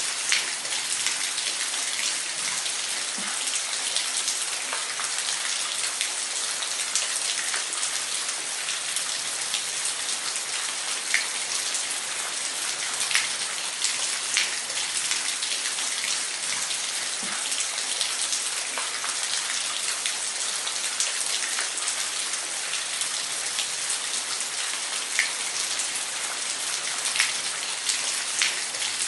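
Waterfall: a steady rush of falling water, with scattered sharp splashes standing out now and then.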